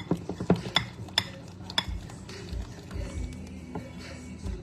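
A utensil clinking against a bowl at irregular intervals while keto pancake batter of cream cheese and eggs is stirred, with music playing underneath.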